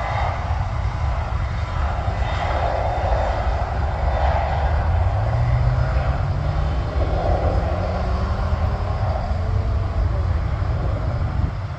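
Business jet's engines at takeoff power during the takeoff roll: a steady rumble with a low tone slowly rising in pitch.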